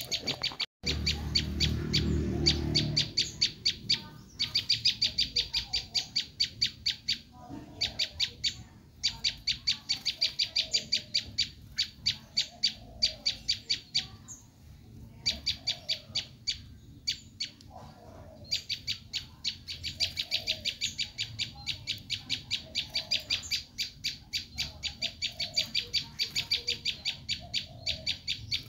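Prenjak lumut giving its rapid, shrill 'screaming' call: long runs of sharp high notes at about four to five a second, broken by short pauses. This excited call is the one used as a lure to draw in wild prenjak.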